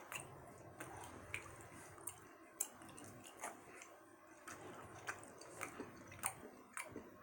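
A person chewing a thick, tough gummy candy with the mouth close to the microphone: faint, with short wet clicks and smacks about once or twice a second.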